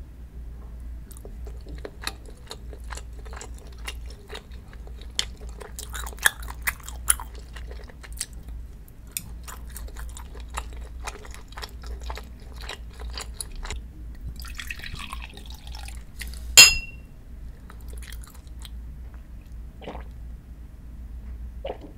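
Close-miked chewing of sundae (Korean blood sausage), with many small wet mouth clicks. About two-thirds of the way through comes one loud, sharp clink that rings briefly. Near the end there are a few soft sounds as soju is sipped from a shot glass.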